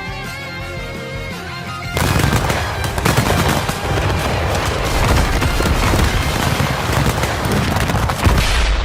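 Dubbed-in anime fight audio: music, then about two seconds in, a loud, dense, rapid-fire barrage of punch and impact sound effects over it.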